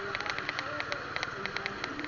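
A vehicle engine running on the move, a steady low hum, with rapid, irregular crackling clicks over it.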